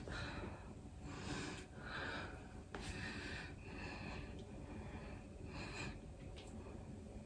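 A man breathing heavily through the nose and mouth, about one loud breath a second, winded from a set of floor exercises.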